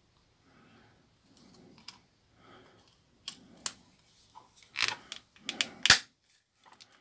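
Plastic casing of a Nokia 6310i being pressed together by hand: soft handling at first, then a run of sharp clicks and snaps from about halfway in, the loudest near the end, as the housing latches into place.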